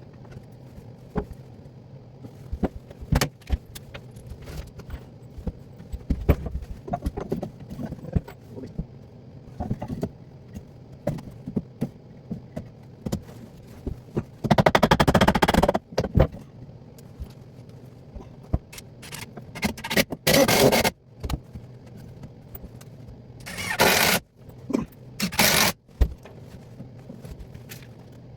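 Work noise from plumbing: scattered knocks, clicks and scrapes of tools and parts being handled, broken by four short, loud rattling bursts, the longest about a second and a half.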